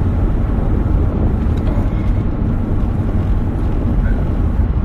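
Steady low road and engine rumble of a moving car, heard from inside the cabin through a phone's microphone.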